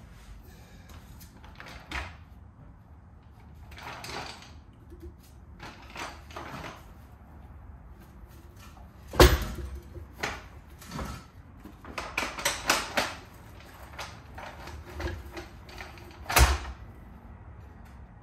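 Scattered metal knocks, clunks and scrapes as a trailer axle is lifted onto a slider and shifted under the trailer frame. The two loudest bangs come about halfway through and near the end, with a quick run of knocks between them.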